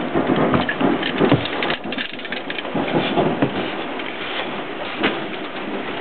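Plastic scraping and clicking as a boat's paddlewheel speed sensor is pushed and twisted by hand into its through-hull housing, over a continuous crackle.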